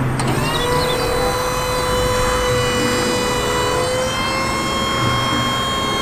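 Truck-mounted aerial work platform running its hydraulics as the boom moves the bucket: a steady, high whine over the truck's engine running.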